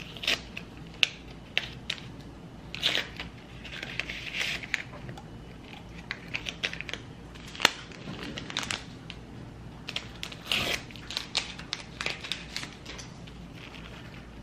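Paper tea bag wrapper being torn open and crinkled by hand, in short rustling bursts with scattered light clicks and taps, one sharp tap about halfway through.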